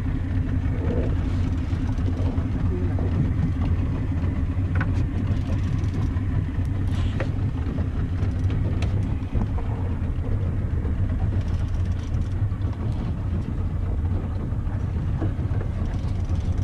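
Fishing boat's motor idling, a steady low hum.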